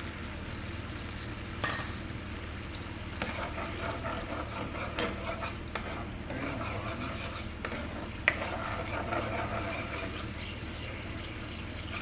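Sauce sizzling and simmering in a frying pan while a plastic spoon stirs it, knocking against the pan a few times; the sharpest knock comes past the middle. A steady low hum runs underneath.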